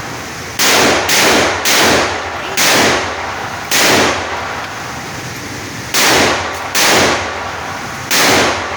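Century Arms AK-47 rifle fired single shot after single shot at an uneven pace, eight shots in all, each with a short echo tail.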